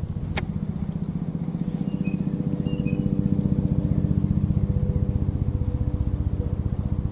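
A small engine running steadily with a fast, even pulse, slowly getting louder. A single sharp click sounds about half a second in.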